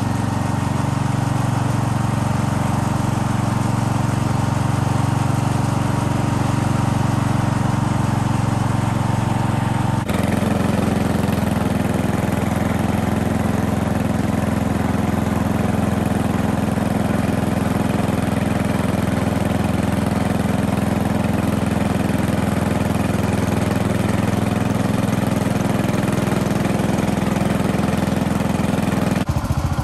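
Vintage garden tractor engine running steadily under way while towing a dump cart, heard close from the driver's seat. Its sound shifts abruptly about ten seconds in, then runs on evenly.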